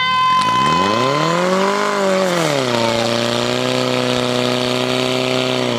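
Portable fire pump's engine revving hard, climbing over the first two seconds, easing back and then holding a steady high run as it drives water out through the hose lines.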